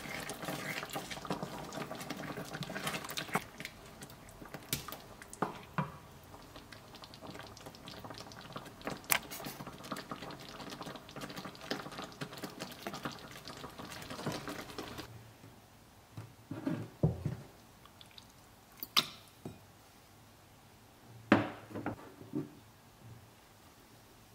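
Wooden spoon stirring a thick, creamy mushroom sauce in a non-stick frying pan: wet sloshing with small scrapes and taps against the pan. About two-thirds of the way through the stirring stops and there are a few separate sharp knocks.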